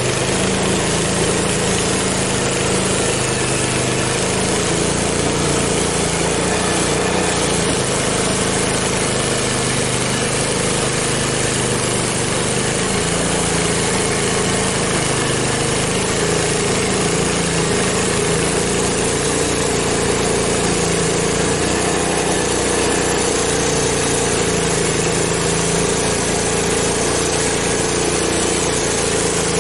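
Frontier OS23 portable band sawmill running steadily, its small engine driving the band blade through an ash log.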